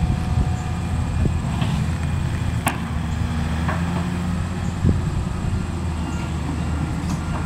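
Diesel engines of a Volvo tracked excavator and a dump truck running steadily, while the excavator bucket drops demolition debris into the truck bed. A sharp crack a little under three seconds in and a thud about five seconds in.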